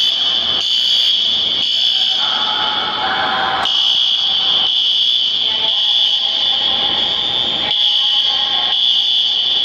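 Fire alarm sounders going off during an FM200 fire-suppression system test: a loud, steady high-pitched electronic tone with a pulsing overlay about once a second.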